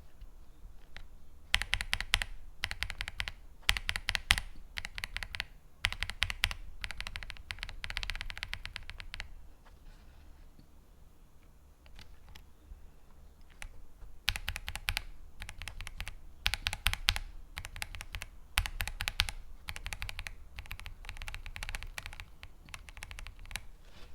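Typing on a mechanical keyboard fitted with Kailh MX-style linear switches: quick runs of key presses and returns. There are two spells of typing, with a pause of a few seconds in the middle.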